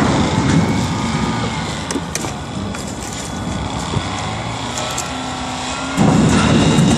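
Low rumble of a wheel loader's diesel engine working a demolition debris pile, with faint squeals and ticks. The rumble jumps suddenly louder about six seconds in.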